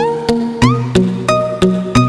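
Background music with a steady beat: sharp clicks about three times a second over held pitched notes, with short sliding tones.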